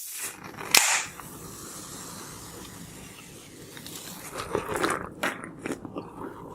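A Coca-Cola can opened: a click, then a sharp pop about a second in and a fizz that fades over the next two seconds. Crinkly, crunchy handling noises follow near the end.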